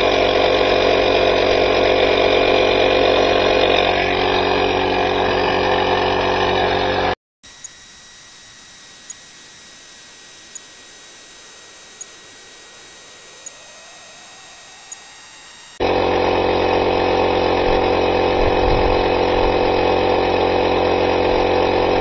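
The UTRAI Jstar6 jump pack's built-in 12-volt air compressor runs steadily under load, pumping up a large truck tire from low pressure. About seven seconds in the sound drops away to a much fainter stretch with a light tick every second and a half or so. The loud, steady running returns about sixteen seconds in.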